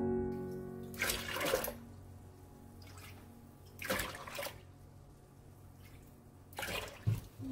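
Sikhye (sweet rice punch) ladled with a mug and poured into a plastic food container, three separate splashing pours about two and a half seconds apart. Soft piano music fades out at the start and comes back right at the end.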